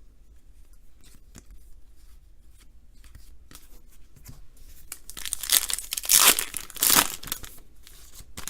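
Trading cards shuffled and handled softly, then about five seconds in a card pack's wrapper tearing and crinkling loudly for about two seconds.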